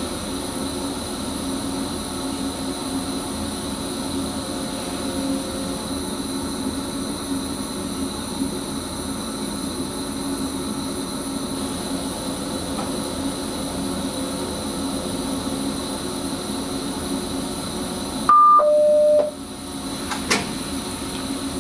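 Steady hum in the driver's cab of an NS Sprinter train. About 18 seconds in, a loud two-note signal sounds, a short high tone then a longer lower one, from the cab radio alerting to an incoming call from the traffic controller.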